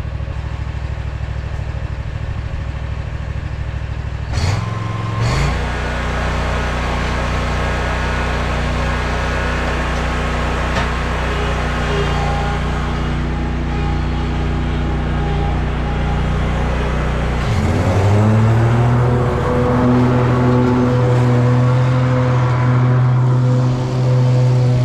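Lawn mower engine running steadily, then throttled up a few seconds in and rising again to a higher, steady speed about two-thirds of the way through.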